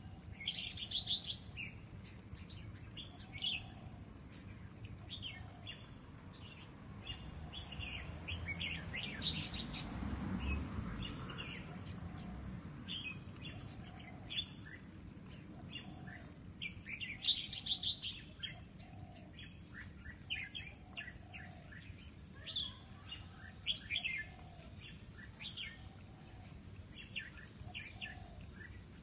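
Red-whiskered bulbuls calling: a busy, irregular string of short chirping notes, with louder clusters of calls now and then.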